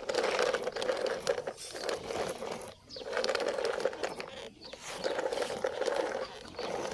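Loaded plastic toy dump truck rolling across gritty dirt, its wheels grinding and crunching in four stretches with short pauses between them.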